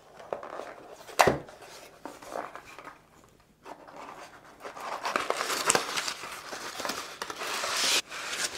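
A small cardboard box being opened, with a sharp snap about a second in, then brown bubble-textured packing paper rustling and crinkling as it is handled and the clamp is unwrapped; the crinkling cuts off suddenly near the end.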